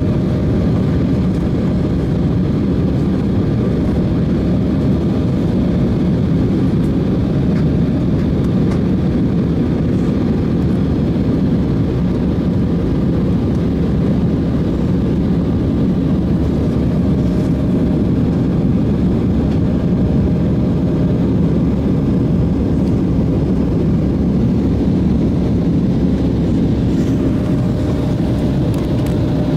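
Steady cabin noise inside an Embraer E175 airliner in flight: the even rush of air and drone of its GE CF34 turbofan engines, with a few faint steady hums on top.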